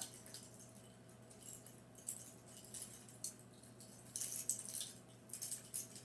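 Clear plastic clothespin clips on a string of LED photo lights clicking and rattling against each other as the tangled string is shaken loose, in faint scattered bursts that come thicker from about four seconds in.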